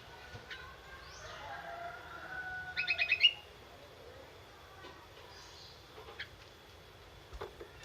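A young wild-caught sirtu bird gives a short, rapid burst of about five harsh notes about three seconds in, amid faint scattered chirps. These are the brief, tentative calls of a newly caught bird only starting to sing.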